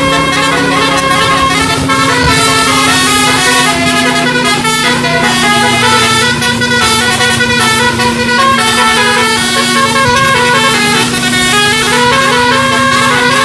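Bus telolet horn, a multi-trumpet basuri musical air horn, playing a quick tune of stepped notes over a steady low tone.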